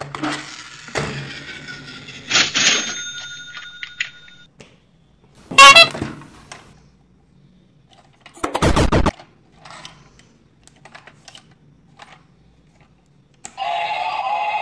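Plastic toys being handled, with a few short electronic sound effects from battery-operated toys; the loudest are two brief blasts, about six and nine seconds in. Near the end the clear toy gear train switches on and starts playing its electronic tune.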